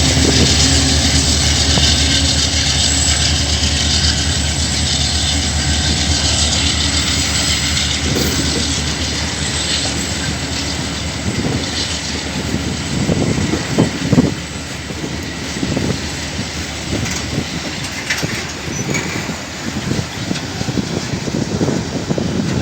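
Diesel freight train passing: the locomotives' low engine drone fades over the first several seconds, then freight wagons roll by with irregular clacks over the rail joints.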